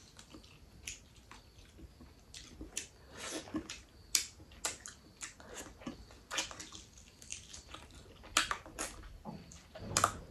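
Close-miked eating: chewing and biting with many sharp, irregular crunches, ending in a bite of crisp papad.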